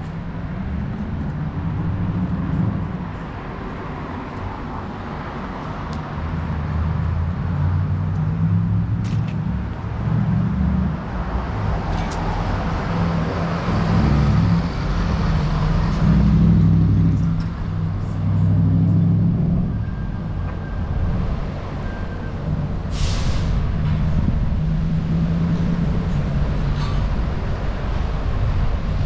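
City street traffic: the engines of passing cars and buses rising and falling as they go by. A short sharp hiss about three-quarters of the way in.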